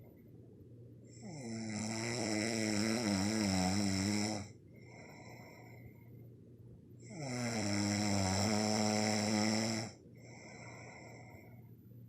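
A person snoring: two long, loud snores of about three seconds each, roughly six seconds apart, with quieter breaths between them.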